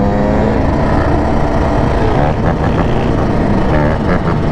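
Dirt bike engines running close by, the nearest on the camera bike itself. The revs dip and climb back a couple of times.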